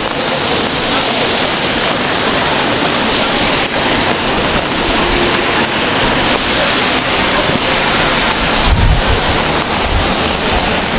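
Steady, loud hiss of heavy rain falling, with a low rumble about nine seconds in.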